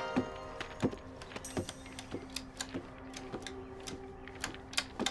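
A string of light, irregular clicks and taps, a few a second, over a faint steady hum.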